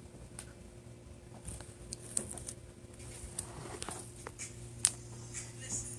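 Faint handling noise from a phone being moved about: scattered small clicks and rustles over a steady low electrical hum.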